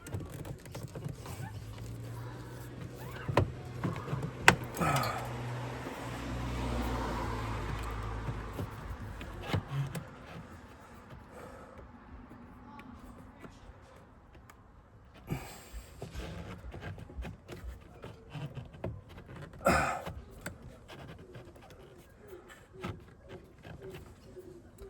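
Scattered clicks and knocks of plastic and metal parts being handled while working on a Holden Colorado's air filter box, with a sharp knock about four seconds in and another near twenty seconds. A low steady hum runs under the first nine seconds or so.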